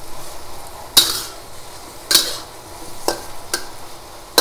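A metal spatula scraping and knocking against a wok as cubed eggplant is stir-fried, about five sharp strokes, with the eggplant sizzling in hot oil between them.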